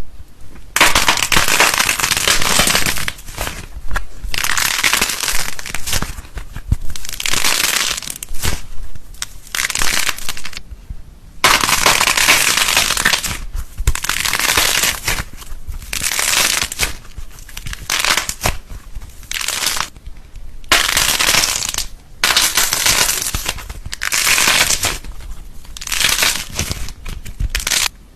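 Slime being squeezed and pressed by hand, giving dense crackling and popping in repeated bouts of a second or few, with short pauses between them.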